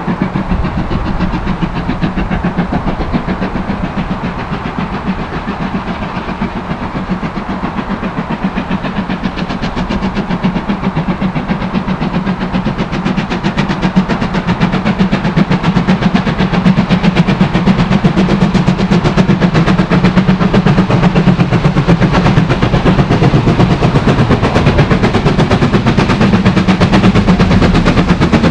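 Steam locomotive working hard at the head of a passenger train, its rapid exhaust beats growing louder from about halfway in as it nears and passes close by.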